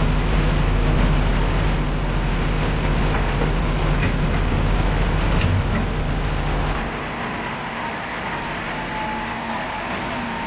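Heavy machine's diesel engine running steadily under a broad rushing noise; its low hum drops away about seven seconds in, leaving the noise.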